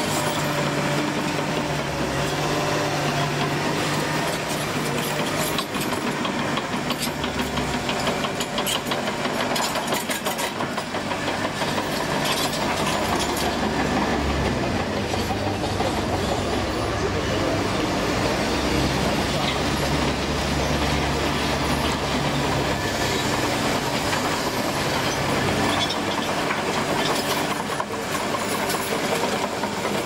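Komatsu D61PXi-23 crawler bulldozer working on gravel: its diesel engine runs steadily, with the pitch shifting now and then, while the steel tracks clatter and squeak continuously.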